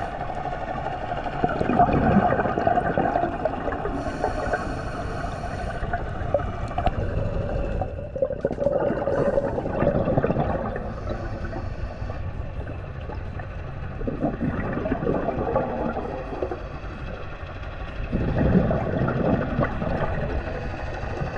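Scuba diver breathing underwater through a regulator: a rush of exhaled bubbles swells up every four to six seconds over a steady gurgling background.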